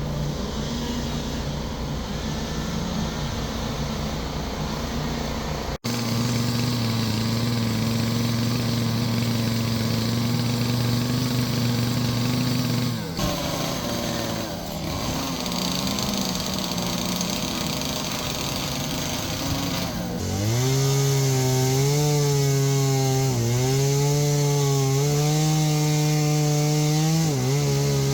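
Gas chainsaw running and cutting wood, its engine pitch rising and falling as the chain bites and is eased off. The sound changes abruptly about six seconds in and again partway through, after which the saw runs hardest, with the pitch swinging repeatedly near the end.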